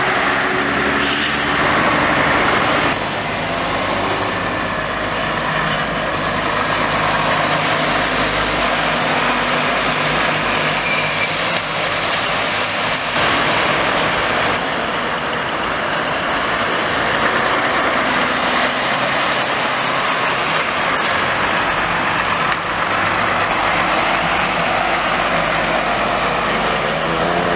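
Heavy semi-trailer trucks passing close by one after another, their diesel engines running with loud tyre and road noise, the sound shifting as each truck goes by.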